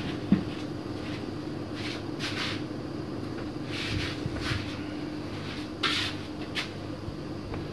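Handling noises on a workbench: a sharp knock just after the start, then several short scrapes and rustles, over a steady low hum.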